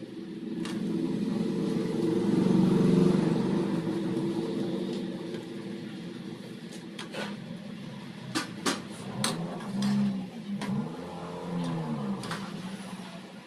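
A low, engine-like hum swells to its loudest about three seconds in and then fades. In the second half a few sharp metal clinks follow, from a steel spoon knocking against the cooking pot as the koftas are added and stirred into the gravy.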